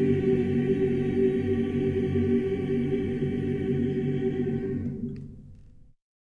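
A choir holds the final chord of a song steadily, then dies away about five seconds in, ending in a moment of silence.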